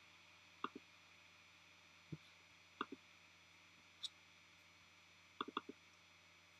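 Faint clicks of a computer's pointing-device button: about ten short clicks, singles and quick doubles, with a fast run of four near the end.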